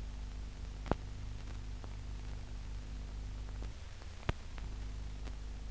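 Steady low hum and hiss of a 1950s newsreel film soundtrack, with two sharp clicks, one about a second in and one past four seconds, and a brief dropout in the hum just before the second.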